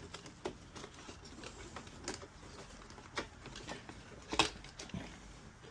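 Scattered light clicks and knocks from handling the espresso machine's plastic control-board housing as the board is pressed off its retaining tab and pulled out, with one sharper click about four and a half seconds in.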